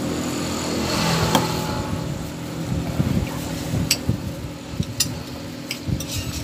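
A vehicle engine running steadily, fading out about two seconds in, then wind buffeting the microphone in gusts, with a few short clicks.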